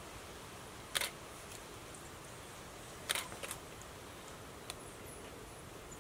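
Camera shutter clicks: one about a second in, then a quick cluster of two or three about three seconds in, over a steady outdoor hiss.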